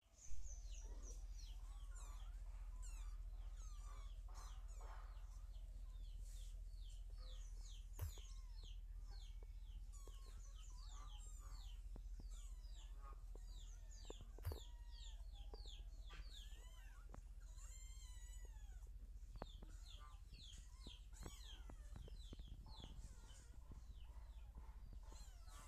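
Birds chirping in the background, a rapid run of short, high, falling chirps that keeps going, mixed with clucking-like calls, over a steady low rumble and a few soft knocks.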